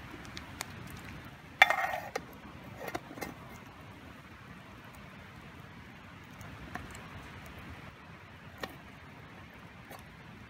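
Camp cookware clinking: one sharp clink that rings briefly about a second and a half in, a few lighter knocks just after, then scattered faint clicks and taps.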